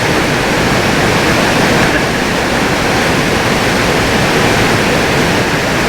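Steady, loud rushing of a waterfall, an even roar of water with no breaks.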